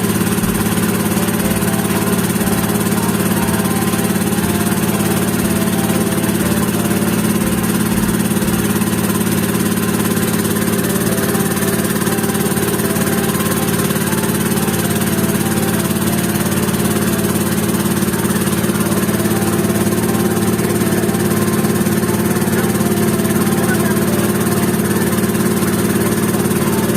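A small motorized bangka's engine running steadily under way: a constant drone that holds the same pitch throughout.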